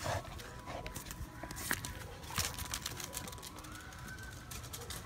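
Light, scattered clicks and taps of steps on a concrete lane, from a Dalmatian puppy's paws as it runs off and from the person following it, with faint voices in the background.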